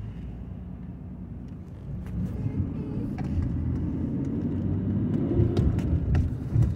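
Car engine and road noise heard from inside the cabin while driving, a steady low rumble that grows louder about two seconds in.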